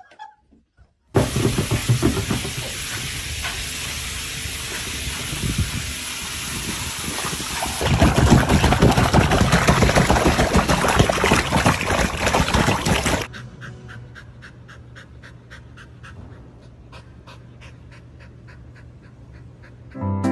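Water running steadily from a kitchen tap into a sink. Then louder, choppy splashing as a small curly-coated dog paddles in a paddling pool. The splashing stops suddenly at about 13 seconds, and a quieter stretch of soft, evenly repeated ticking follows.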